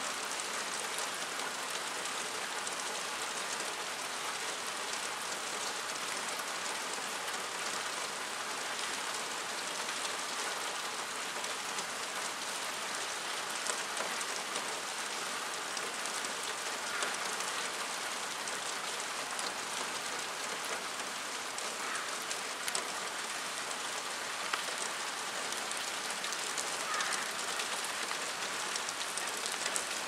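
Steady rain falling on a pine forest: a dense, even hiss with a few louder individual drops ticking now and then.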